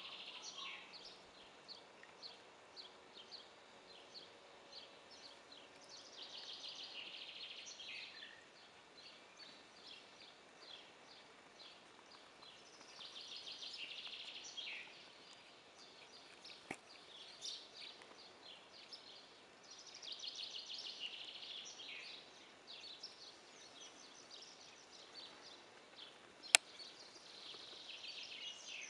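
A bush chorus of short, high chirping calls, swelling every several seconds into dense bursts about two seconds long. A single sharp click stands out about three-quarters of the way through.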